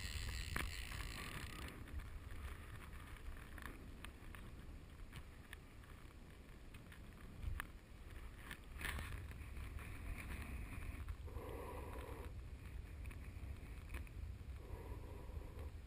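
River water flowing around a wading angler, with wind rumbling on the microphone and a few faint clicks and knocks.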